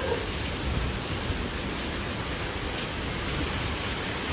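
Heavy rain falling steadily, a constant even hiss of rain hitting the ground.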